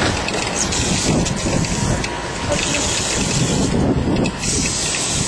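Steady, loud rushing noise of wind and water, with a short dip in the hiss a little before four seconds in.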